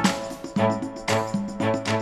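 Background music: an instrumental track with a bass line and a regular beat.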